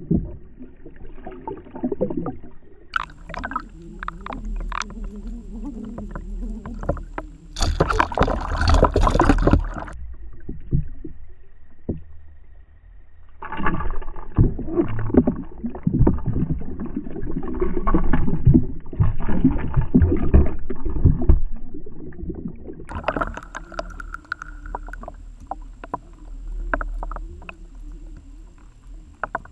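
Muffled underwater noise picked up by a submerged camera: low rushing water with irregular knocks and clicks. A louder burst of splashy hiss comes about eight seconds in and lasts about two seconds. A faint steady high whine comes and goes.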